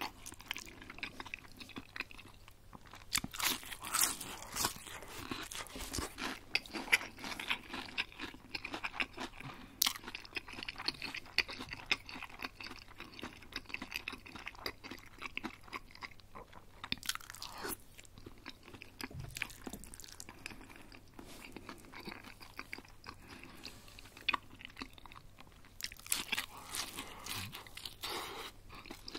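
A person biting and chewing crispy breaded chicken schnitzel close to the microphone: irregular crisp crunches, with several louder spells of biting.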